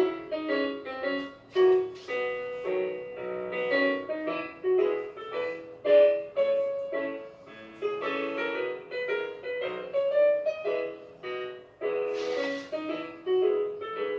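Solo piano playing a melody over chords: ballet class accompaniment music for a barre exercise.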